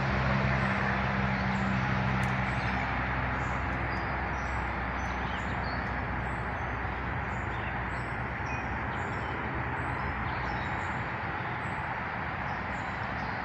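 Steady outdoor background noise with small birds chirping repeatedly in short, high calls. A low engine hum is heard in the first few seconds and fades away.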